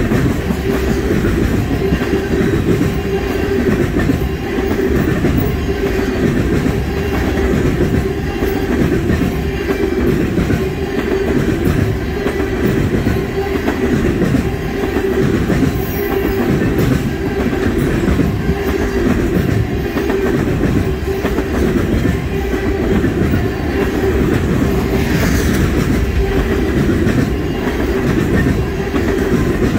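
Freight train of oil tank cars rolling past close by. The steel wheels click over the rail joints in a steady, evenly repeating clickety-clack over a continuous low rumble.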